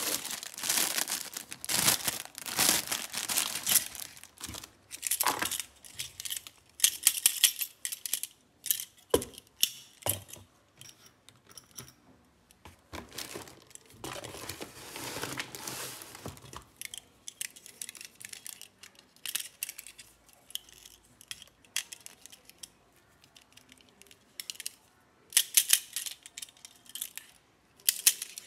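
Plastic packaging bags crinkling and rustling in irregular bursts as toys are handled and pulled out of a cardboard box, with scattered clicks and light clinks of small hard pieces.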